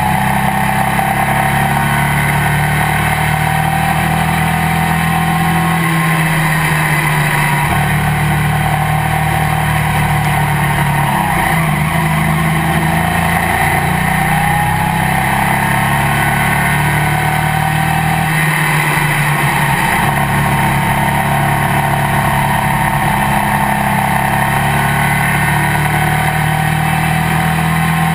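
Legends race car's motorcycle-derived engine heard loudly from inside the cockpit, running steadily at low revs with only small shifts in pitch as the car creeps along in line.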